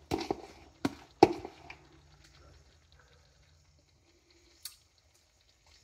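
Sloppy joe sauce being knocked and scraped out of a plastic bowl onto a pan of fries: a few sharp knocks and wet plops in the first second and a half, the loudest about a second in. Then near quiet, with one faint click near the end.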